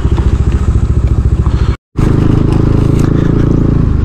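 Motorcycle engine running steadily while riding, with a brief dropout in the sound about two seconds in.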